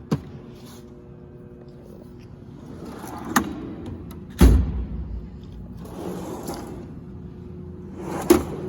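Drawers of a steel roll-cab tool chest sliding on their runners and shutting, with sharp clicks and one heavy thud about four and a half seconds in.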